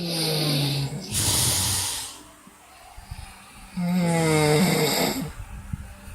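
Loud staged snoring in two long cycles a few seconds apart: each is a low, rattling drone that sags slightly in pitch, followed by a hissing breath.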